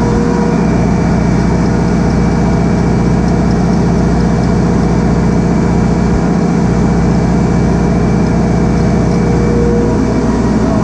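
Loud, steady drone of industrial refrigeration compressor machinery running, with a few steady tones over a dense low hum.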